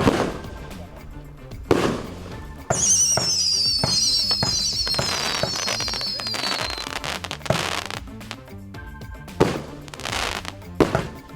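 Fireworks going off inside a glass aquarium: a series of sharp bangs, and from about three seconds in a wavering high whistle that slides down in pitch for about four seconds.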